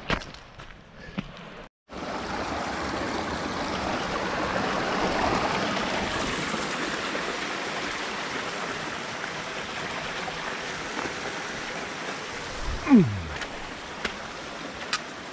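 Steady rush of a mountain stream cascading down a torrent, starting after a brief gap about two seconds in. About 13 seconds in a short falling swoop stands out as the loudest sound, and a few sharp clicks come near the end.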